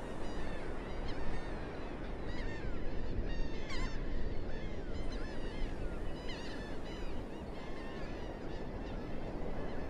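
A large flock of coastal birds calling over one another, many short rising-and-falling calls, over a steady rushing background.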